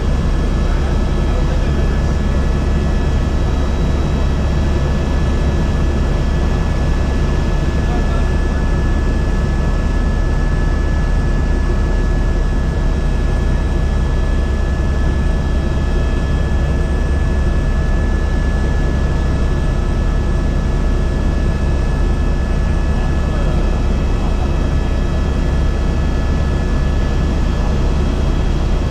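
Tour helicopter running steadily, heard on board: a loud, even drone of rotor and turbine with a few faint steady whines above it.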